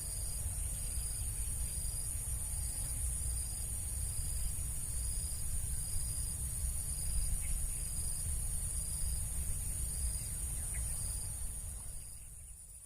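Insects calling: a steady high-pitched drone, with a short higher chirp repeating about three times every two seconds, over a low rumble. The sound fades down near the end.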